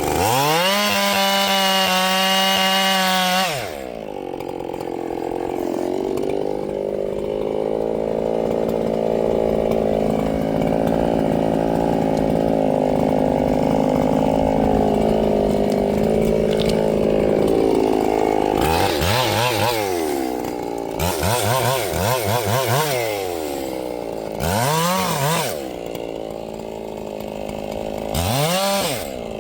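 Ported Echo CS-7310 two-stroke chainsaw. It revs quickly to a high, steady scream, then drops to a lower, wavering pitch for about fourteen seconds, as it does when pulled down under load in a cut. Near the end there are several quick throttle blips.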